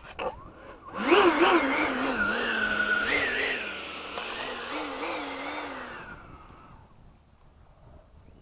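Electric ducted fan of a 90mm Freewing F-22 RC jet, driven by a Leopard 4092 inrunner on 6S, spooling up sharply about a second in for takeoff. It gives a loud whine whose pitch wavers up and down, then fades over the following few seconds as the jet moves away.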